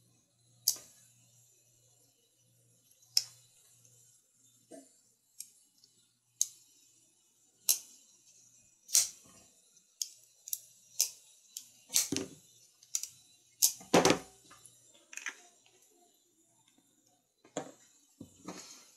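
A dozen or more sharp clicks and taps at uneven intervals, with a short clatter about two-thirds of the way through: small metal parts and tools being handled and set down on a hard surface while a folding knife is reassembled.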